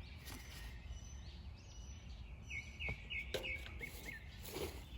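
A bird calling outdoors, a quick run of four or five short chirps about halfway through, over a steady low rumble and a few faint knocks.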